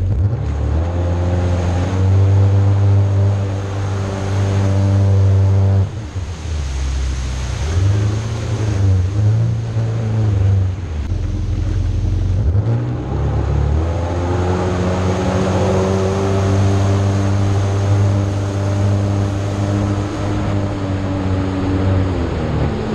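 Jet ski engine running under way with water rushing beneath the hull. The engine note holds steady, eases off and wavers about six seconds in, then picks up again about fourteen seconds in and holds steady until it drops near the end.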